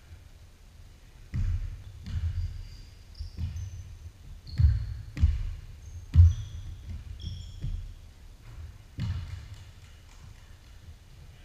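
Basketball bouncing on a hardwood gym floor, about nine irregular heavy thuds starting about a second in, with short high sneaker squeaks on the court between them.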